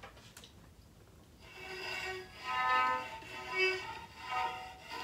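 Homemade cigar box fiddle, built without waist (bow) cutouts, being bowed. It plays a run of short notes at changing pitches, starting about a second and a half in.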